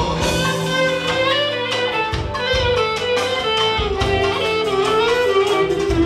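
Dance music with guitar and a wavering, bending lead melody over a steady beat.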